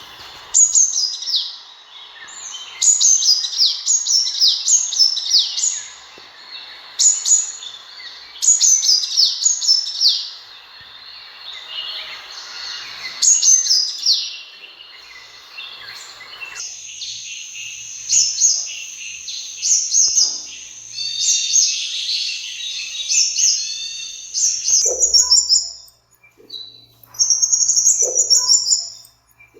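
Sunbird calls: rapid bursts of high, thin notes that slide quickly downward, repeated every second or two. A background hiss under the calls stops abruptly a little past halfway.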